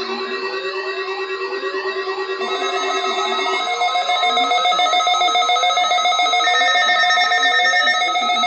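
Several weather alert radios sounding their alarms at once for a tornado drill alert: steady, partly pulsing alarm tones layered with a repeating siren-like rising sweep, a little more than one a second. The mix grows louder about three to four seconds in.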